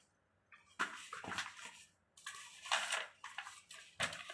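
Rustling and clicking from hands opening a jewellery package, in several short bursts after a brief silence.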